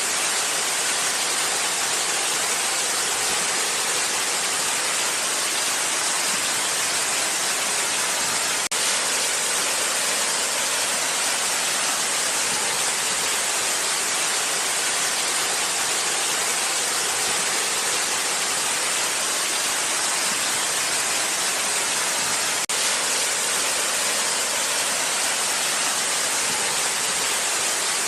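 Waterfall: a steady, unbroken rush of falling water, with a very brief dip in level twice.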